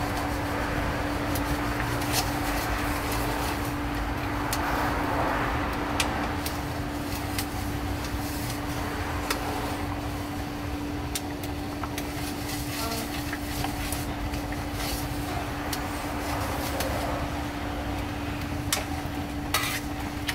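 Metal ladle stirring liquid in a steel wok, with occasional clicks and scrapes of the ladle against the pan over a steady hiss and a low hum. The stirring dissolves palm sugar and white sugar into tamarind water.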